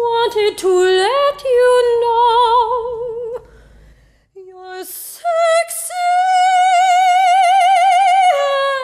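Female opera singer singing in full operatic voice with wide vibrato: a short rising phrase into a held note, a brief pause, then one long high note held for about three seconds that falls away near the end.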